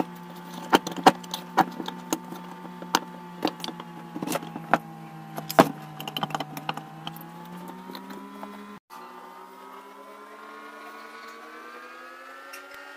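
Metal parts of a four-stroke brush cutter engine clicking and knocking as they are handled and fitted into the open crankcase, with the clicks coming thickest in the first seven seconds or so. Under them a steady hum continues throughout, breaking off briefly about nine seconds in and then drifting slowly higher in pitch.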